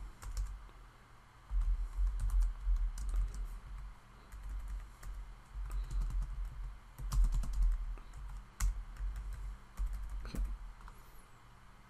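Typing on a computer keyboard: irregular runs of keystrokes with short pauses between them, each run carrying dull low thuds along with the clicks.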